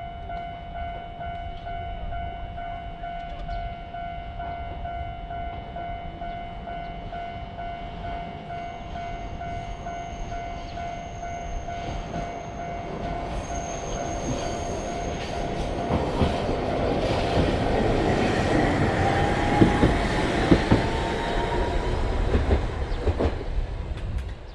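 Japanese level-crossing alarm ringing steadily. A train then passes close by from about two-thirds of the way in, growing loud, with a rising whine and wheels clattering over the rail joints. The sound cuts off right at the end.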